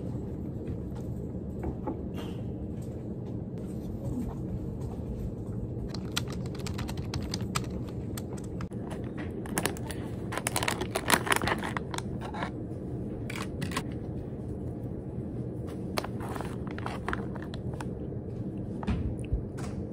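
Crinkling and rustling of a foil snack pouch being handled and opened, loudest about ten to twelve seconds in, with more rustles near the end, over a steady low room hum.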